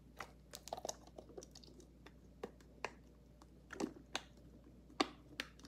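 Clear plastic parts of a wearable breast pump cup clicking and tapping as they are handled and pressed together: a string of sharp, irregular clicks, the loudest near the end.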